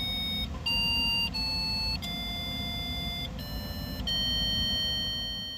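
Background music: a slow electronic melody of held, beep-like notes that change pitch every second or so over a low hum, starting to fade out near the end.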